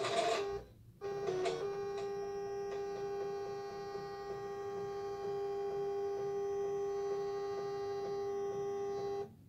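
Silhouette Cameo 4 cutting machine drawing its rotary blade through fabric: a steady, pitched motor whine with faint regular ticks. It drops out briefly about a second in, resumes, and cuts off suddenly near the end as the last cut finishes.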